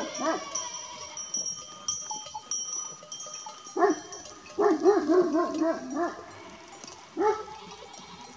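Kangal shepherd dog barking in an alarm at something it has heard or seen: a single bark about four seconds in, a quick run of barks around five seconds, and one more near the end. A faint, steady high ringing sounds through the first half.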